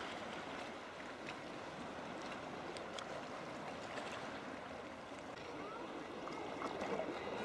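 Sea water lapping and gurgling around a sea kayak's hull, with small clicks and splashes. Near the end, a few faint calls come from the seabird colony on the cliffs.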